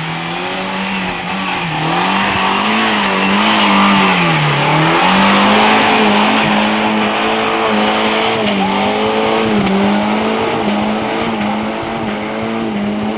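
Car engine held at high revs on a slippery muddy climb, the power kept on for traction. The revs waver and dip now and then as the wheels lose and find grip. A rushing noise of tyres churning mud runs underneath, loudest about halfway as the car passes close.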